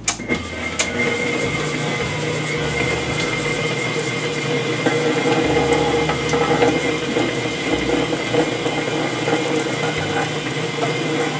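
Hamilton Beach Eclectrics stand mixer switched on with a click, then its motor running steadily at about medium speed as the beater works creamed butter and sugar while egg yolks are added.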